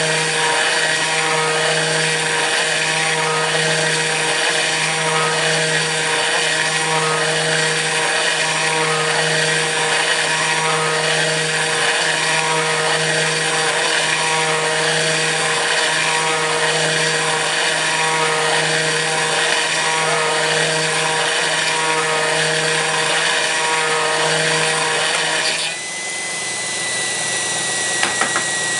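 Kress FME-1050 router spindle on a CNC mill cutting aluminium: a loud, steady machining whine with a regular pulsing. About 26 seconds in the sound changes suddenly, dropping a little in level as a single high whine takes over.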